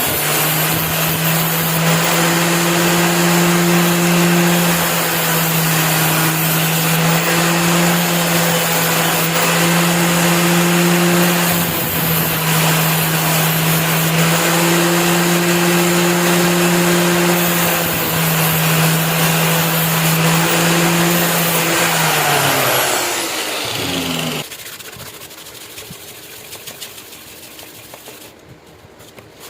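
Electric power tool motor working on a steel knife blade, running at a steady hum with a high hiss of abrasive on metal. About 22 seconds in it is switched off and spins down, its pitch falling, leaving faint rubbing.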